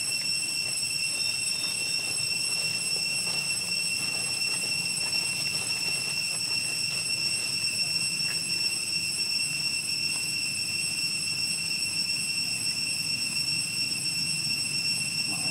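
A steady, high-pitched insect drone: one unbroken whine with overtones, over a faint low rumble.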